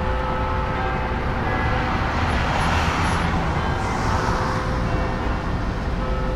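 City street traffic: a steady low rumble of road traffic, with a louder hiss of a vehicle passing that swells and fades in the middle.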